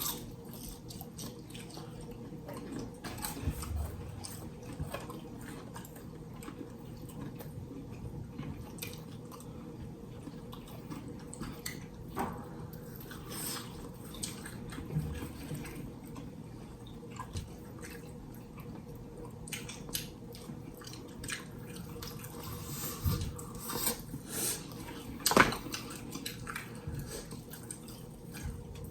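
Close-miked eating of fried chicken: scattered crunchy bites and wet chewing and mouth clicks over a steady low hum. The sharpest bite comes near the end.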